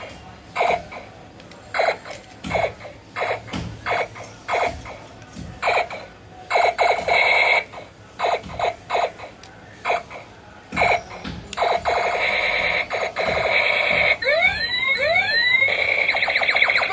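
Battery-powered toy machine gun's electronic firing sound effect: short buzzy bursts, roughly one a second, as the trigger is pressed. From about twelve seconds in it becomes a continuous electronic rattle, with rising and falling sweeping tones for a second or two in the middle.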